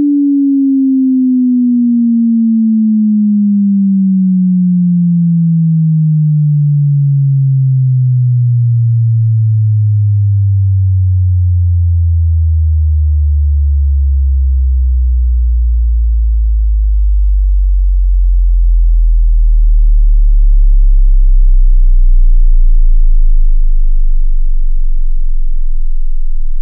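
A pure sine test tone gliding steadily downward in pitch, from a low hum to a very deep bass tone that holds at the bottom for the last several seconds: the low end of a frequency sweep through the range of human hearing.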